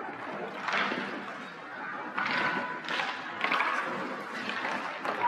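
Ice hockey play in a rink: skate blades scraping the ice and sticks hitting the ice and puck, coming in short noisy bursts, with spectators' voices faintly behind.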